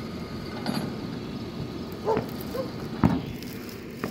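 Tow truck engine idling with a steady low rumble, broken by a few short knocks and clanks; the sharpest knock comes about three seconds in.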